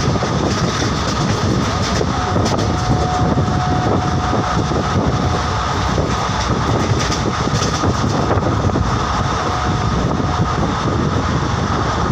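A train running along the track: a steady, loud rumbling noise with a constant high whine over it. A second, lower thin tone comes in for a few seconds about two seconds in, and again briefly near the end.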